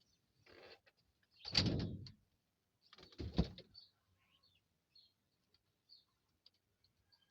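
Small birds chirping faintly and sparsely at a feeding spot. Two louder, brief rushes of noise come about a second and a half in and again about three seconds in.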